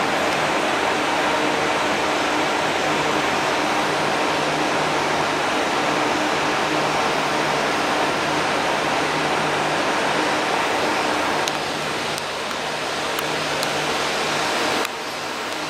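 Steady machine noise, an even rush with a low hum running under it. It drops in level about 11 seconds in and again sharply near the end.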